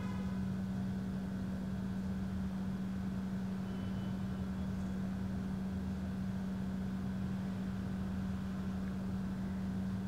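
Steady low hum with no change in pitch or level, over faint background noise.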